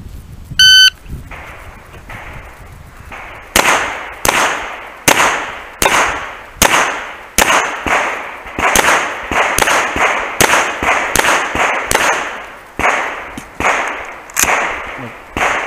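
An electronic shot timer beeps once, and about three seconds later a handgun opens fire in a steady string of well over a dozen shots, one every half to three-quarters of a second.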